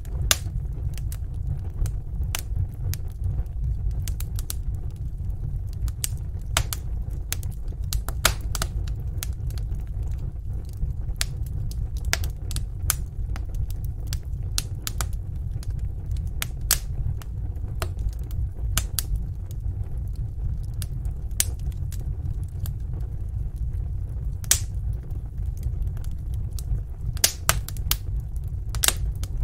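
Wood fire in a fireplace crackling, with irregular sharp pops over a steady low rumble.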